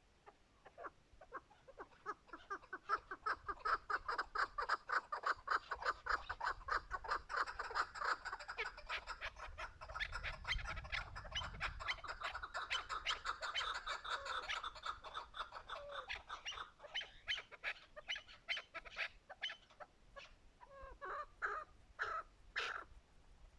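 Chukar partridge calling: a long run of rapid repeated clucking notes, about four or five a second, that breaks into scattered separate calls near the end.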